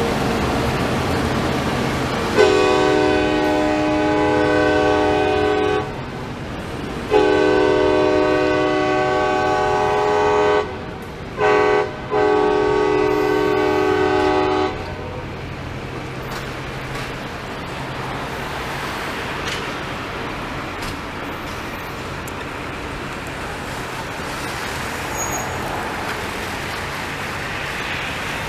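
Train horn blowing the grade-crossing signal, long, long, short, long, several tones sounding together, over the steady rumble of a Loram rail grinder train's cars rolling past. After the horn stops, the cars keep rolling by.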